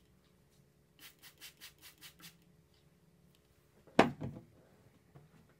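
A quick run of rubbing strokes, about six a second for just over a second, from handling makeup things. About four seconds in comes a single loud knock, like an object being set down hard.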